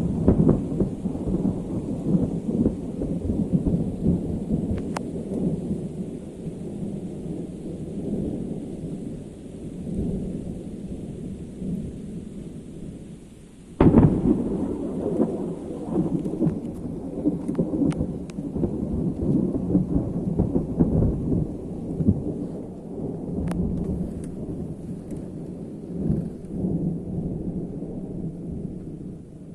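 Thunder rolling continuously, with one sudden sharp crack about halfway through that trails off into a long rolling rumble. These are powerful cloud-to-ground strikes a few kilometres away, which the recordist takes for positive lightning.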